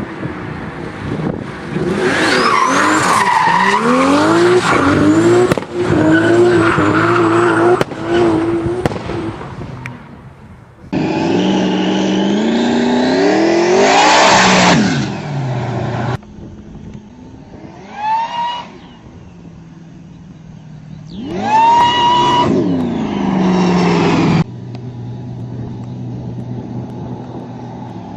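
Forced-induction car engines revving hard in a series of short clips: the engine note climbs in pitch under a high whine that rises along with it, and each rev ends abruptly. Near the end an engine runs steadily at a low, even note.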